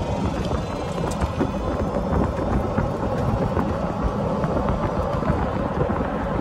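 A golf cart driving along a paved road: a steady rumble of the ride with many small rattles and knocks from the cart.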